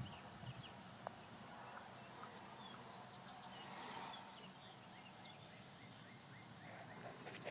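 Faint birds chirping in short, quick calls over a low background hiss, with a couple of isolated clicks.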